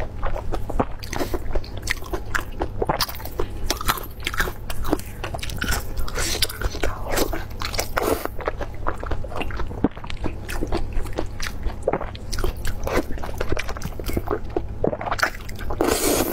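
Close mouth sounds of chewing and biting Chinese blood sausage: a dense run of wet clicks and smacks, with a louder bite near the end.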